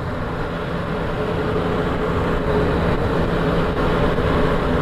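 Wind rushing past a microphone inside a motorcycle helmet, over the steady note of a Yamaha MT-09's three-cylinder engine cruising at about 30 mph, growing slightly louder through the stretch.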